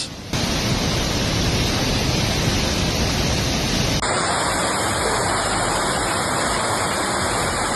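Water rushing in a steady, even noise, as from floodwater or heavy rain in flood footage. About halfway through it changes abruptly to a brighter, hissier rush, as a new clip cuts in.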